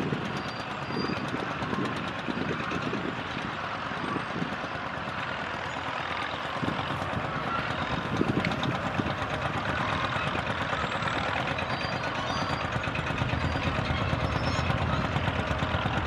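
Vintage crawler tractor's engine running steadily under load as it pulls a multi-furrow plough at slow speed, with a fast even beat.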